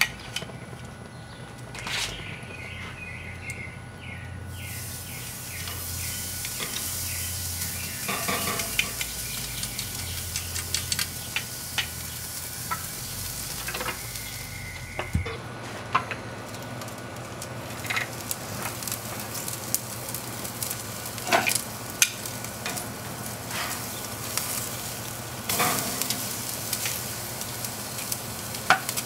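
A steak sizzling as it sears on a very hot Big Green Egg ceramic grill, a steady hiss with scattered sharp clicks and knocks of metal tongs and the lid. The sizzle starts a few seconds in and dips briefly about halfway through.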